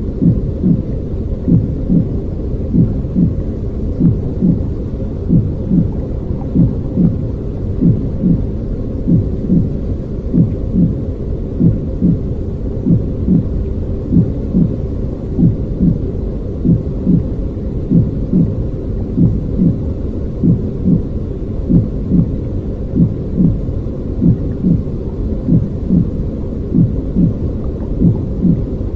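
A human baby's heartbeat, amplified: a steady, even train of low beats repeating over a constant noisy hiss.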